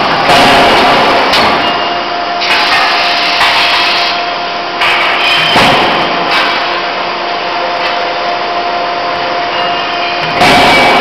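Forge-shop machine noise from a C92K-25KJ hydraulic die forging hammer: a steady hum and rushing noise from the running machine, with a few sudden louder bursts, the strongest near the end.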